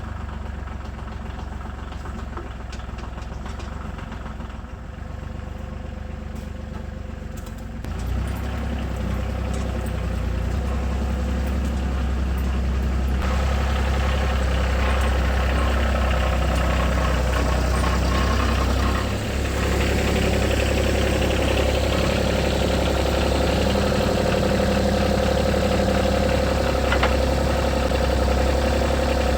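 A Ford's engine running steadily with a low rumble. It grows louder about eight seconds in and again around thirteen seconds in.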